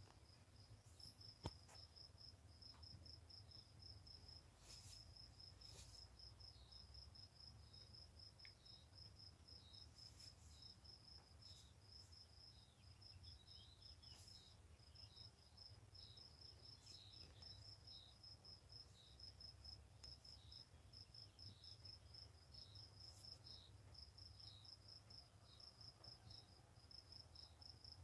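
Faint, steady chirping of a cricket, a quick even run of high pulses that never stops, with occasional soft scratches from a lionhead rabbit digging in hay and dirt.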